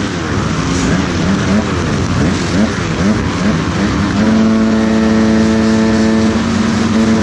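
A line of motocross dirt bike engines on the start line, revving and blipping their throttles in quick rising-and-falling bursts. About four seconds in, one engine is held at a steady high rev for roughly three seconds and then drops back, as riders hold the throttle waiting for the start gate to drop.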